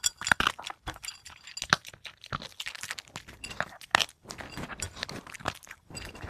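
Puppy crunching and chewing dry food in irregular, sharp bites.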